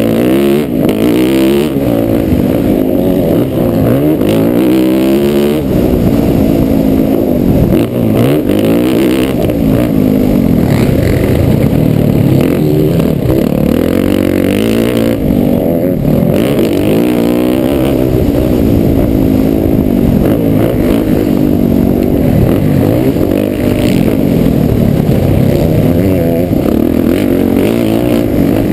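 Motocross bike engine at race pace, its pitch climbing and dropping over and over with throttle and gear changes. The sound is muffled, with little above the low and middle range.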